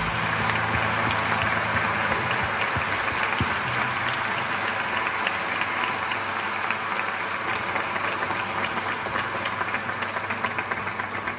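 Concert audience applauding, a dense clapping that thins into more scattered, separate claps near the end.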